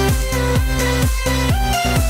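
Electronic dance music with a steady kick-drum beat, about two beats a second, and held synth notes.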